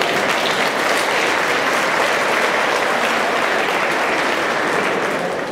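Audience applauding, a steady clapping that eases off near the end.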